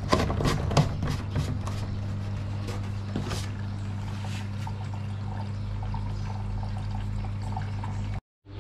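Samsung front-loading washing machine filling with water at the start of a wash: running water over a steady hum. Several sharp plastic clicks and knocks from bottles being handled on its lid come in the first second or so, and one more about three seconds in.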